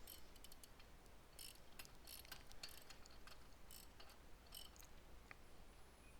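Faint, irregular metallic clicks of a wrench working the arbor bolt of a Ryobi circular saw's blade while the spindle lock is held, tightening the new blade in place. A faint high chirp comes near the end.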